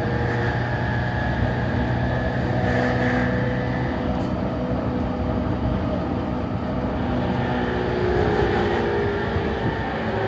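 Interior running sound of a JR East E231-series Yamanote Line motor car: steady rumble of wheels on rail with several steady whining tones from the traction motor and gearing. About seven seconds in, a new set of lower whining tones sets in and sinks slightly. This car has an abnormal noise when decelerating, which the uploader suspects comes from the gears.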